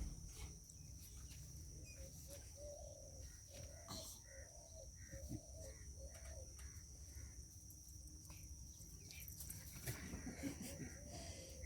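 A series of short animal calls, about two a second, dying away after about six seconds, over a faint steady high-pitched hum.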